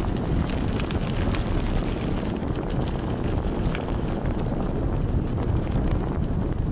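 Steady low rumble of wind buffeting the microphone on a moving e-bike, with the tyres rolling over a dirt and gravel path and a few faint ticks from small stones.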